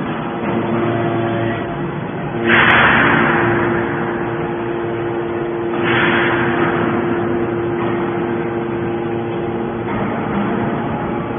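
Hydraulic scrap baling press running: a steady hum from its power unit, with two sudden loud rushing surges, about two and a half and six seconds in, each dying away over a second or so.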